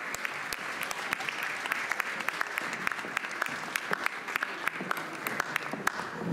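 Audience applauding steadily, with many individual hand claps standing out.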